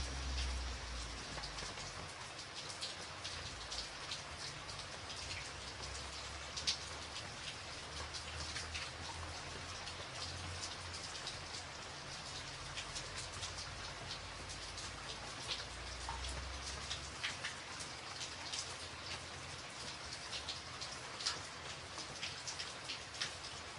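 Rain falling steadily: an even patter with many single drops striking close by, some sharper than the rest. A faint low rumble swells and fades underneath, about a third of the way in and again past the middle.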